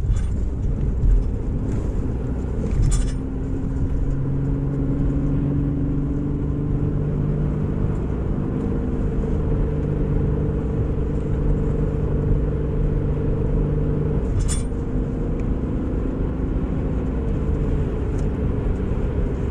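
Car driving on the road, heard from inside the cabin: a steady low rumble of road and engine noise with a droning hum, and two brief sharp clicks, one about three seconds in and one near the end.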